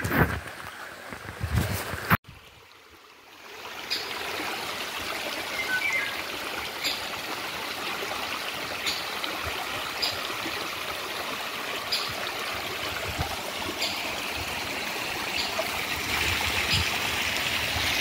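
Small shallow stream trickling and babbling over stones, a steady rush of water that settles in after a few seconds. Before it, a few bumps of the handheld phone being moved and a sudden click about two seconds in.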